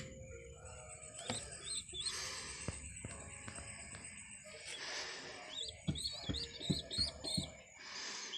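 High-pitched peeping chirps from fantail pigeon squabs, coming in short runs with a quick burst of them about six seconds in. A handful of sharp knocks sound between about six and seven seconds, the loudest moments, over background music.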